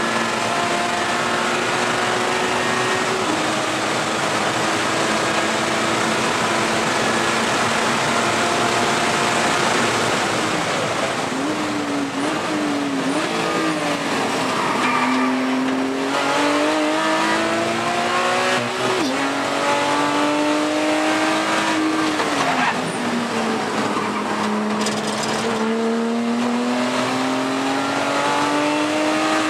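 Porsche Cayman race car's flat-six engine, heard from inside the cockpit at racing speed. It holds high, slowly climbing revs with a brief drop about three seconds in. In the middle the pitch falls and jumps about as the car brakes and downshifts for a corner, then climbs again through upshifts, dipping once more near the end before rising.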